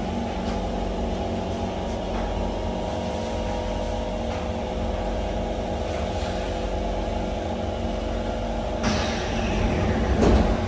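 Inside a Kawasaki C151 MRT train: a steady hum of several unchanging tones over a low rumble, with no rise or fall in pitch. About nine seconds in, a sudden louder burst of noise cuts in.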